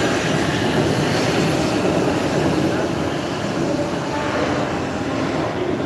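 Oslo T-bane metro train running through the station, a loud, steady noise.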